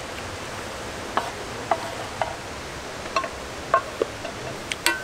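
Spoon clinking and scraping against a bowl about seven times, each clink a brief ringing note, while the last of a bowl of soup is eaten up.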